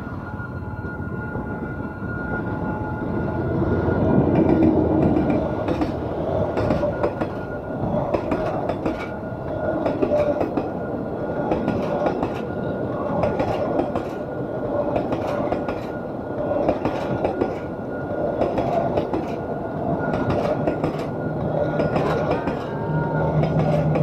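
Passenger train coaches rolling through a level crossing, wheels clacking over the rail joints in a repeated rhythm under a steady rumble, with the crossing's warning signal sounding a steady tone throughout. A low engine hum from the approaching diesel locomotive comes in near the end.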